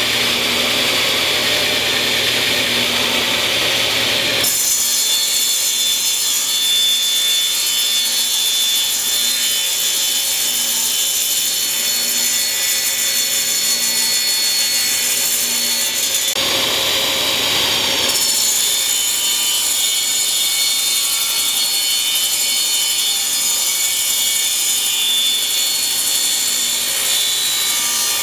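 Table saw running, its blade cutting a V-groove into a spinning round of scrap pine turned by an electric drill. The cut bites in about four seconds in, eases off for a moment a little past the middle, then carries on steadily.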